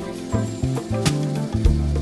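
Background music with a bass line and a drum beat, a sharp drum hit about once a second.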